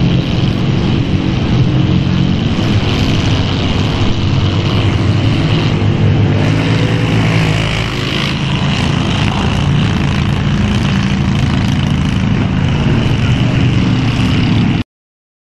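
Ford mud truck's engine running steadily under load as it pushes through deep mud and water. It cuts off suddenly near the end.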